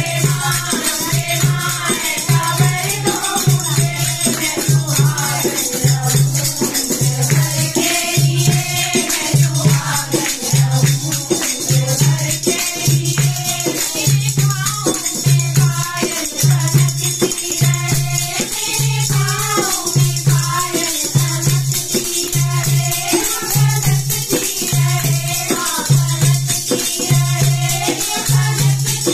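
Group of women singing a Hindu devotional bhajan (kirtan) together, with hand claps and rattling hand percussion. A dholak keeps a steady low beat, a little over one stroke a second.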